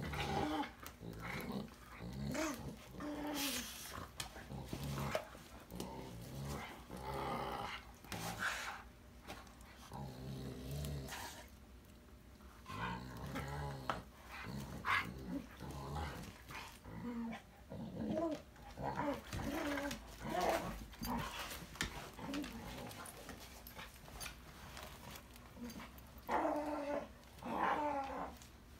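Two pit bulls playfighting, growling and grumbling at each other in short, irregular bursts, with scuffling knocks between; the growls are play, not aggression.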